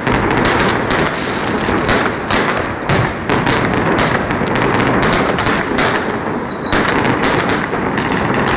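Chinese New Year fireworks and firecrackers going off in a dense, loud, unbroken barrage of bangs and crackle. Twice, about a second in and again past the middle, a whistle falls in pitch for over a second.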